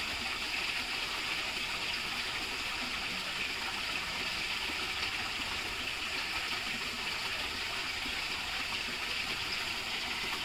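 Water pouring from a concrete culvert and splashing steadily into a pool below, a constant rushing hiss.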